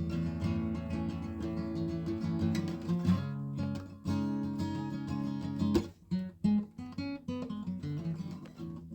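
Background music: strummed acoustic guitar, breaking into separate plucked notes with short gaps in the second half.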